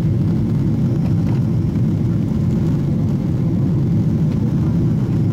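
Airliner cabin noise in flight: the steady low drone of the jet engines and airflow heard through the fuselage, unchanging throughout.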